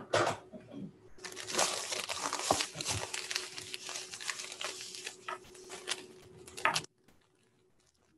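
A plastic bag of sugar crinkling and rustling as it is handled and opened, with many small sharp crackles; it stops abruptly near the end.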